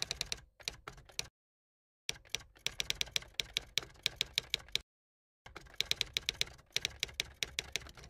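Typing sound effect: rapid key clicks, several a second, in runs broken by short silent pauses, as on-screen text is typed out letter by letter.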